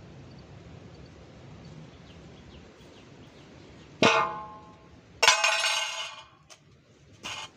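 Metal clanging with a ringing tone: a flat iron tawa (griddle) struck with a metal ladle. One sharp clang about four seconds in, a second clang a little over a second later that rings for about a second, and a short clink near the end.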